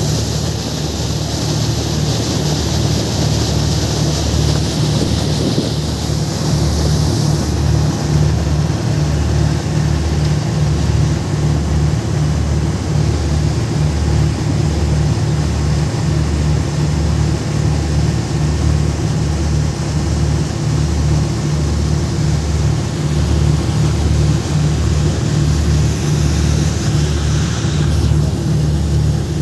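Motorboat under way: the engine runs steadily with a low throb that pulses about once a second, over the rush of the churning wake and wind on the microphone.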